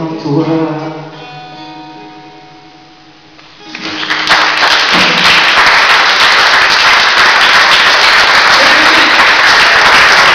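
A man's voice and a strummed acoustic guitar end a song on a held final chord that rings out and fades over about three seconds. Then an audience breaks into loud, steady applause about four seconds in.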